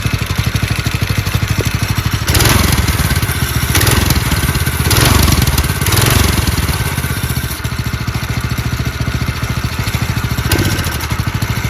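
Predator 212 Hemi single-cylinder four-stroke engine on a mini bike running just after starting, revved up several times with the throttle and dropping back to a steady idle between blips. It is running poorly after a carburetor clean and new gasket, the repair not having cured its bogging.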